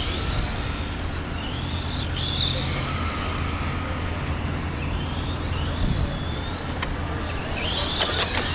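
Several radio-controlled Euro Truck racers' electric motors and gears whining, the high pitch rising and falling again and again as the trucks accelerate and brake around the track, over a steady low hum.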